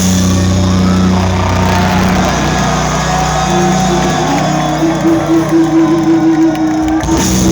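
Live rock band holding a long final chord on electric guitars and bass, one note wavering on top, over a cheering crowd; the chord cuts off near the end, leaving the crowd's cheers.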